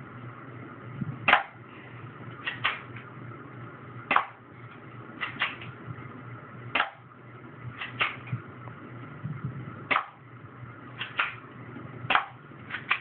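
BB pistol shooting repeatedly at a dartboard target: sharp snaps roughly once a second, several of them in quick pairs a fraction of a second apart.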